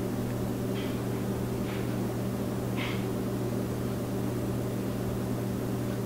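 Steady low hum with background hiss, and a few faint short hisses about one, two and three seconds in.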